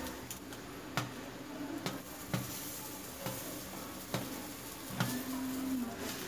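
A charred omelette sizzling on a cast-iron tawa, with a metal slotted spatula clicking and scraping against the pan about six times.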